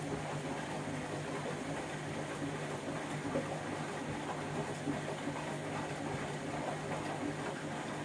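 Candy Grand'O Vita 7kg front-loading washing machine on a boil wash: the drum turns with water sloshing and splashing inside, over a steady motor hum.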